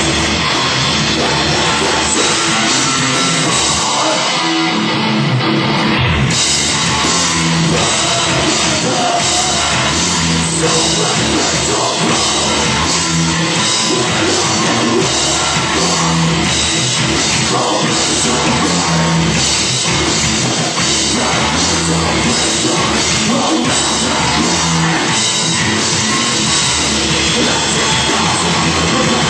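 A live rock band playing a loud song with a full drum kit. After a brief thinner break about five seconds in, a steady driving beat comes back in.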